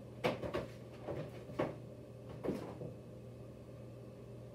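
Objects being handled and set down: several short knocks and clatters in the first three seconds, over a low steady hum.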